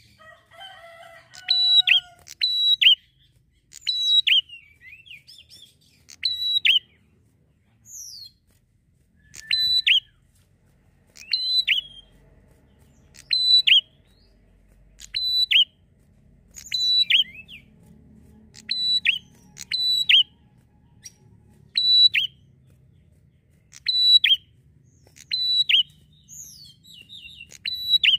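Prinia (prenjak) singing: a short, sharp, loud phrase with a falling end, repeated over and over about every one and a half to two seconds.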